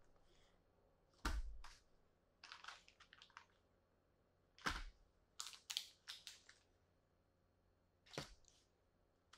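Crinkling plastic bags and three soft knocks as small bagged accessories are set down one after another on a table. The crinkles come in short crackly bursts between the knocks.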